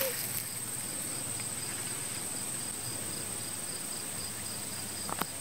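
Crickets trilling steadily: a continuous high-pitched trill with a second, pulsing chirp repeating rapidly beneath it. A short faint knock comes near the end.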